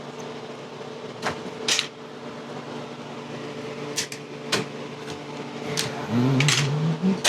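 Scattered clicks, knocks and short scrapes of tools or parts being handled on a workbench, over a steady mechanical hum.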